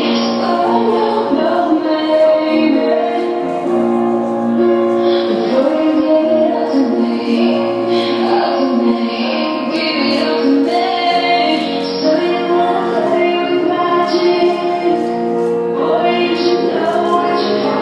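Music with a woman singing, long held notes over a steady accompaniment.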